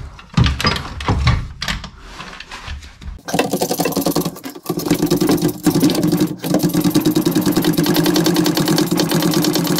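Irregular clunks and knocks of a trolley jack being moved under the car's rear subframe. About three seconds in, a small motorised machine starts up and runs steadily with a rapid, even pulsing.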